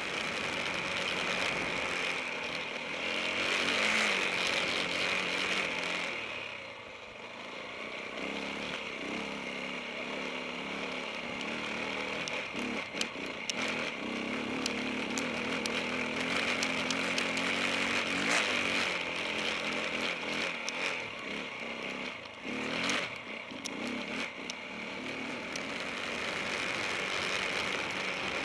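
KTM 690 Enduro R single-cylinder engine running on a rough dirt trail, heard from a camera on the bike, its note rising and falling with the throttle. Scattered sharp clicks and knocks come from stones and the bike over the rocks.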